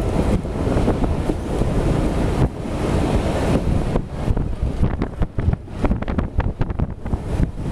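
Passenger train running along the track, heard from on board: a steady rumble and rush of air with wind buffeting the microphone, and a run of rapid rattling clicks from about four seconds in.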